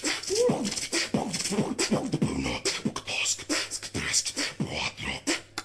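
A man beatboxing: a fast run of mouth-made drum hits, clicks and hisses mixed with short sliding pitched vocal sounds.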